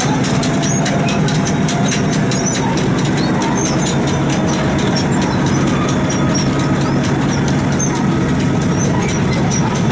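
Diesel engine of an International 442 paddle wheel scraper idling steadily.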